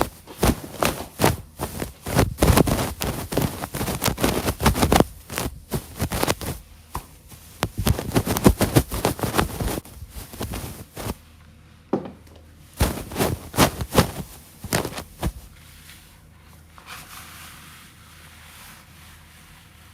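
Hard plastic pieces, likely Lego bricks, clattering and scraping as they are handled, in quick irregular clicks that thin out after about fifteen seconds.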